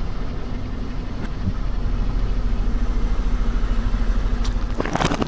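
Car engine running with a steady low rumble as the car rolls slowly. Near the end, a quick run of sharp cracks and crunches as something is crushed under a tyre.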